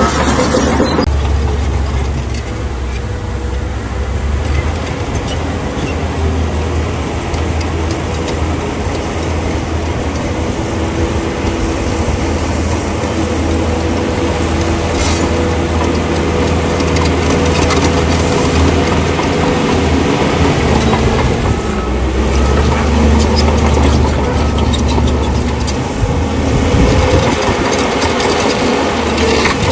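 A crawler bulldozer's diesel engine running as it works, its deep engine note swelling and easing over time, with the noise of the machine and its tracks.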